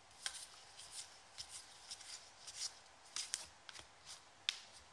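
A small stack of trading cards being flipped through by hand, one card slid off the top after another: faint, irregular light clicks and swishes of card stock, with a sharper click about four and a half seconds in.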